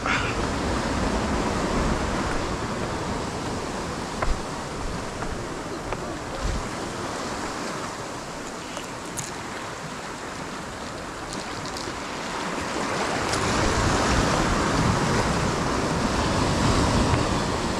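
Ocean surf washing and foaming around shoreline rocks: a steady rush that swells louder in the second half, with a couple of brief knocks early on the way.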